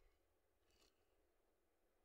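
Near silence: the faint low rumble of a car cabin, with one brief soft hiss a little under a second in.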